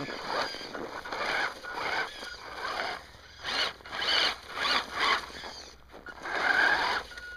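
RC snowmobile with a brushed electric motor driving its track in short bursts of throttle: a rasping whir that starts and stops several times, with a thin whine in the last burst.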